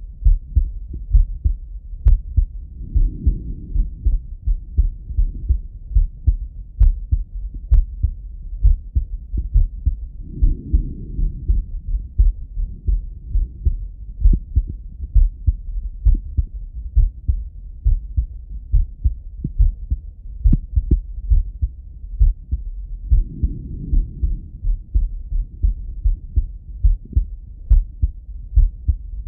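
A man's slow, steady heartbeat heard through a Littmann stethoscope chest piece: a regular lub-dub of low thumps. Soft breath sounds come through three times, about 3, 11 and 24 seconds in.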